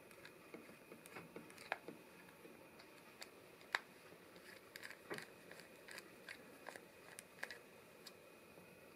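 Faint, irregular clicks and ticks of a precision screwdriver turning out the tiny screws that hold the speaker driver in a Bose QC25 headphone ear cup, with light handling of the plastic cup.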